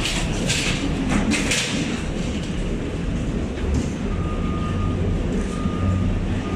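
Airport terminal background: a steady low rumble, with a few short hisses in the first two seconds and an electronic beep that sounds three times, each under a second long, from about four seconds in.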